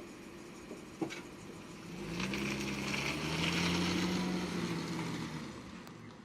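A car driving past: its engine and tyre noise swell over about two seconds, hold, then fade away. A sharp click comes about a second in.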